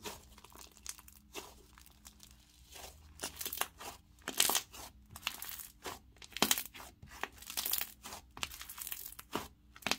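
Soft slime textured with snow fizz being stretched, folded and squeezed by hand, giving faint, irregular clicks and crackles, a few of them louder in the middle.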